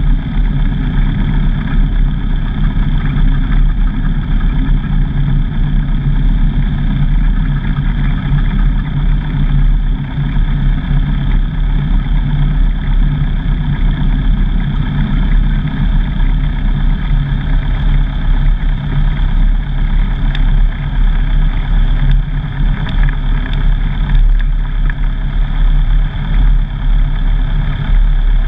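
Light single-engine aircraft's piston engine and propeller running steadily at low taxi power, heard from inside the cockpit.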